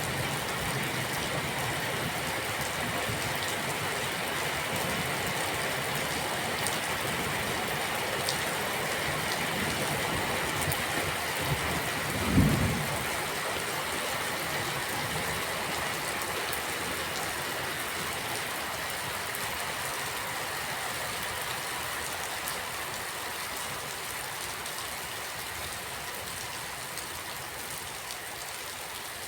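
Steady rain falling on surfaces, an even hiss, with one brief low thump about twelve seconds in. The rain grows slightly quieter toward the end.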